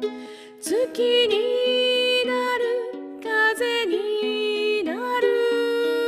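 A woman singing a slow ballad to her own ukulele accompaniment. Her voice slides into long held notes over plucked chords.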